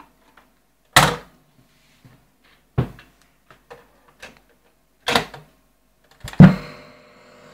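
A few sharp mechanical knocks and clicks as a portable cassette recorder and a wooden amplifier box are handled. About six and a half seconds in comes the loudest clunk, a press of the cassette recorder's piano-key buttons, and a steady hum follows.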